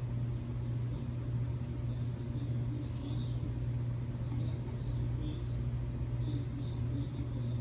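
A steady low hum, with faint, short high-pitched chirps scattered through it.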